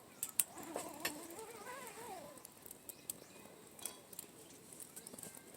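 Wood campfire crackling, with irregular sharp snaps and pops over a light hiss.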